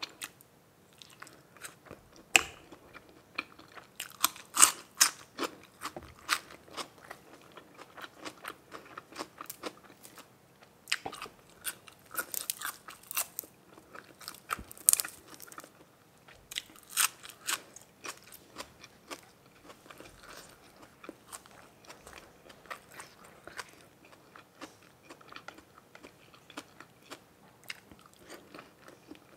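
A person eating grilled pork-ball skewers close to the microphone: chewing with crisp, crunchy bites that come in several louder bursts.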